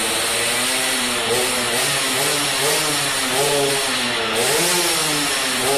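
Yamaha F1ZR race bike's 116 cc two-stroke engine running in a rasping, chainsaw-like note and revved up and down repeatedly, about once a second.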